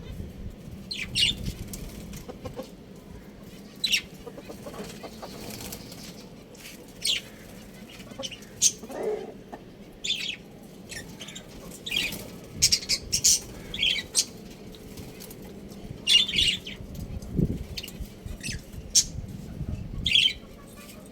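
Birds giving many short, high chirps at irregular intervals, with a lower call about nine seconds in; no rooster crow is heard.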